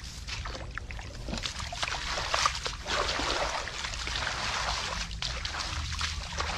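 Hands splashing and sloshing in shallow muddy water, with many short irregular wet splatters as the mud is groped through for fish.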